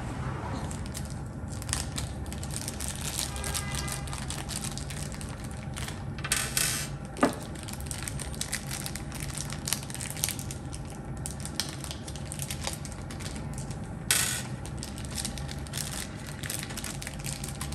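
A small clear plastic bag of screws and washers being handled: crinkling plastic and small metal parts clicking and clinking inside. There are two louder rustles and one sharp click.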